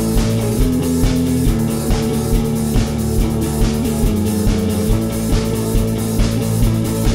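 A rock band playing an instrumental passage: guitars over a drum kit keeping a steady beat of a little over two beats a second.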